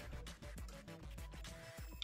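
Quiet background music with held notes and a light, regular beat.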